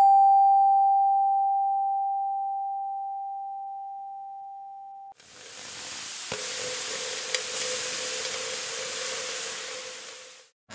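A doorbell chime: one struck bell tone that rings and fades slowly for about five seconds, then cuts off. Then food sizzling as it cooks, a steady hiss with a faint tone beneath and a single pop.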